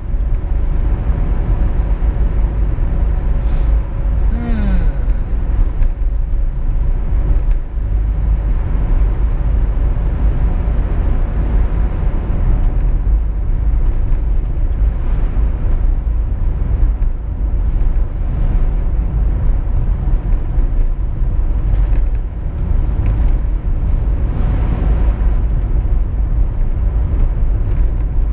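Car driving at speed on an open road: a steady, loud low rumble of road and wind noise, with a short falling pitched sound about four seconds in.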